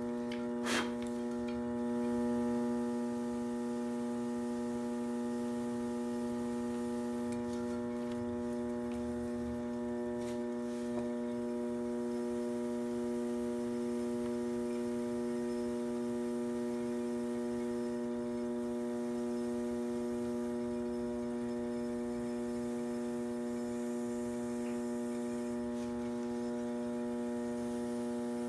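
Electric pottery wheel's motor humming steadily as the wheel spins, with one sharp click about a second in.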